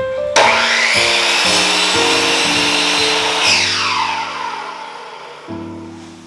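Electric power tool starting up about half a second in, running for about three seconds, then winding down, over background music.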